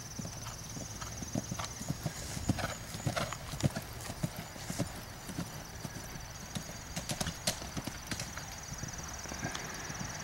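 Horse cantering on grass turf: a steady run of hoofbeats, several a second.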